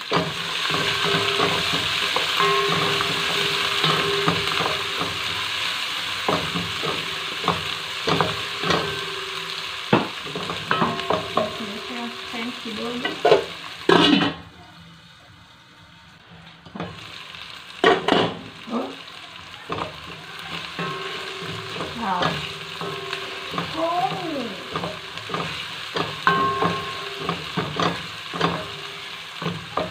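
Chopped onions with ginger-garlic paste sizzling in hot oil in a non-stick pan, a wooden spoon stirring and knocking against the pan. About halfway through there is a clatter as a pot lid is handled, and the sizzle drops away for a few seconds before the stirring knocks and sizzle come back.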